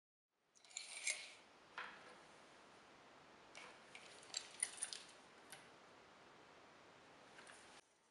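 Faint metallic clicks and rattles from a steel tape measure being pulled out and handled, a handful of small clicks spread over several seconds. The sound stops abruptly near the end.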